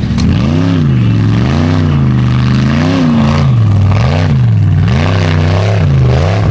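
Engine of a Formula Offroad unlimited-class buggy revving up and down over and over, about once a second, as the throttle is worked on a steep climb.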